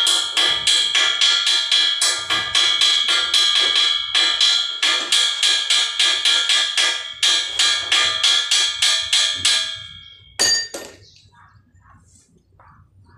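Stick (arc) welding on a steel pipe joint: the arc starts suddenly and runs for about ten seconds with a loud crackle and a high steady whine that pulses about three or four times a second, then cuts off. It is followed by two sharp metallic knocks.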